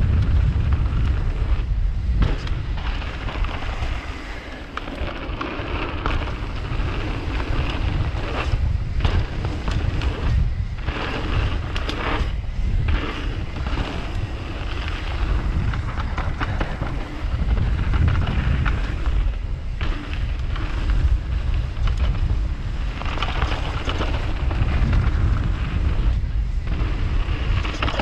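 Mountain bike riding fast down a dirt trail: wind buffeting the camera microphone over the rumble of tyres on dirt, with occasional clatters from the bike.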